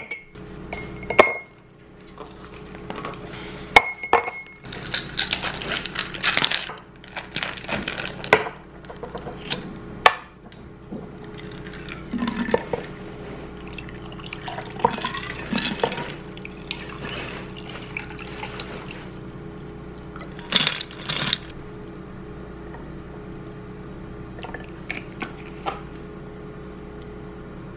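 Ice cubes and crystal rocks glasses clinking, some clinks ringing briefly, and a pink cocktail poured from a steel cocktail shaker over the ice in the glasses.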